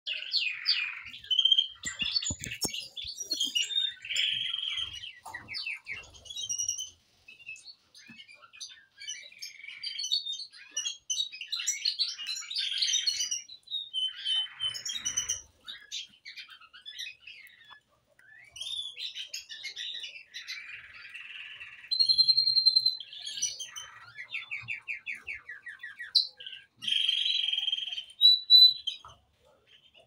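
Small birds chirping and calling, with short whistles and several rapid trills of about ten notes a second.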